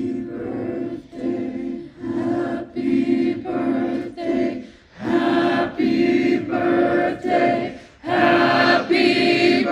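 Choir singing a cappella: several voices holding notes together in short phrases, with brief breaks between them.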